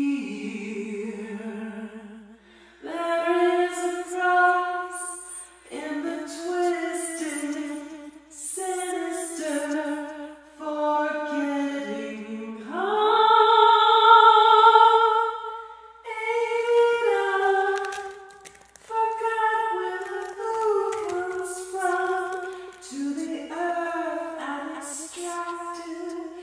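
A woman's voice singing a slow melody unaccompanied, in phrases of held notes a few seconds long with short breaks between them.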